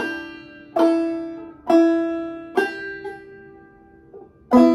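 Gold Tone banjo played clawhammer style, picked slowly one note at a time: three notes about a second apart, each ringing and fading, then a louder, lower note near the end.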